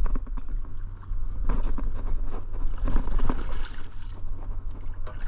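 Wind rumbling on the microphone, with scattered knocks and a burst of splashing about three seconds in, as a hooked largemouth bass is fought and pulled in at the boat.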